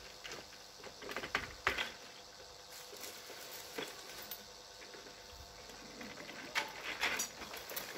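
Scattered clicks and light knocks of hard plastic baby-walker parts being handled and snapped together. A short clatter comes about six to seven seconds in as the walker frame is swung over onto its wheels.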